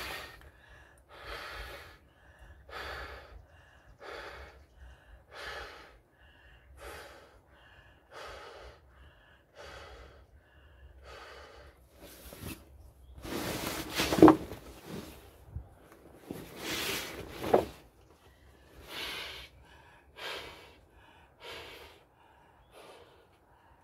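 A person blowing up a vinyl inflatable pool by mouth: repeated gasping breaths at the valve, about one every second and a half, with two longer, louder stretches near the middle.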